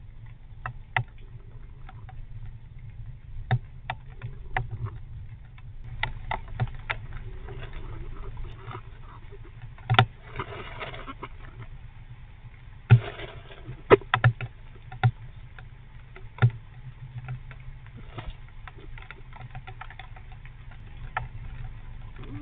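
Fox squirrel grooming and shifting about inside a nest box: scattered light taps and clicks, with brief scratchy rustles about ten and thirteen seconds in, over a steady low hum.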